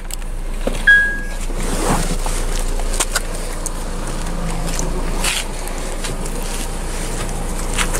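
Honda R18A2 1.8-litre inline-four idling, heard as a steady low hum. A short electronic beep sounds about a second in, and scattered knocks and rustles follow.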